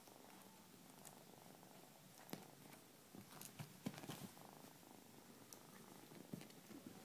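Domestic cat purring faintly close to the microphone, with a few soft taps and rustles, clustered a little past the middle.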